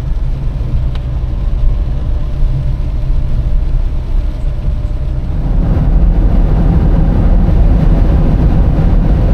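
Car driving on a highway: a steady low rumble of road and engine noise that grows louder about halfway through.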